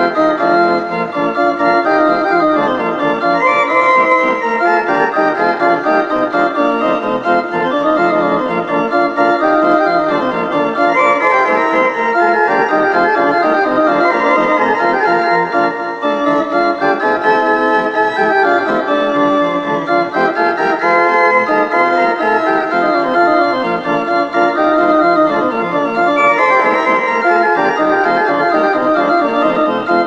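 Instrumental music with held chords and a melody that rises and falls, playing steadily throughout.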